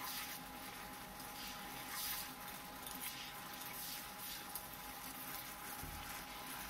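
Chicken wings sizzling in a sticky sauce in a nonstick pan while a slotted spatula stirs and turns them, giving repeated wet scraping and squelching strokes.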